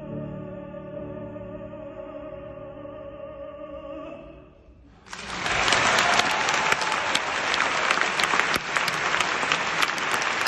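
A tenor holds a long final note with vibrato over a grand piano, and it fades out about four seconds in. About a second later the audience breaks into applause, louder than the singing.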